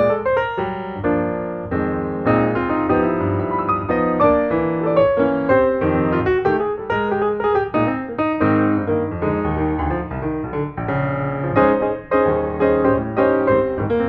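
Background piano music: a steady run of played notes with no other sound standing out.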